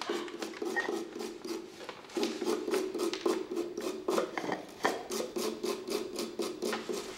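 Light, quick taps and scratching, about four a second, over a low steady hum.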